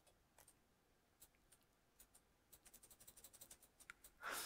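Near silence with faint, scattered clicks of a computer input device as the presenter sculpts. About two and a half seconds in they come as a quick run, and a short, louder rustle follows near the end.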